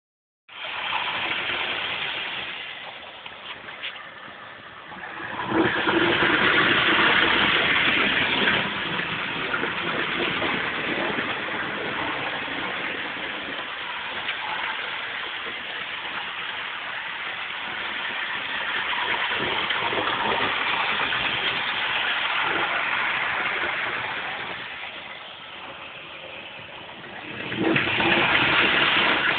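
OO gauge model train running on the layout: the locomotive's electric motor and its wheels on the rails make a steady rushing noise. It swells about six seconds in and again near the end, fading in between.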